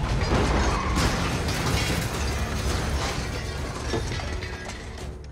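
Film sound effects of a car crash: cars colliding and one rolling onto its side, with crunching and scraping metal and clattering debris over a low rumble. The noise dies away gradually near the end.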